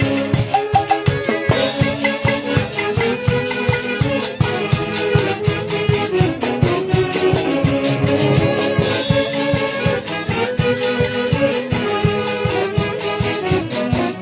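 Andean orquesta típica playing dance music, several melody instruments over a steady, fast percussion beat.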